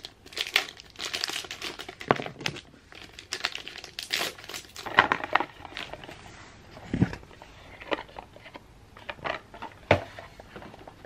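Irregular crinkling and rustling of handled material, in uneven bursts with a few sharp clicks.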